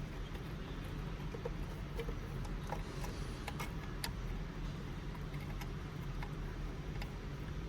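Plastic wiring-harness connectors and cables being handled and plugged together: scattered small clicks and ticks over a steady low hum.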